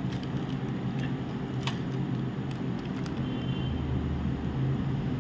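A steady low mechanical hum, like a running fan or motor, with a few faint clicks.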